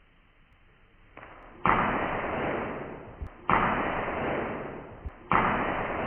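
A knife-cut impact sound effect played three times, about two seconds apart: each is a sudden hit that trails off over more than a second. A short low knock comes just before the second and third hits.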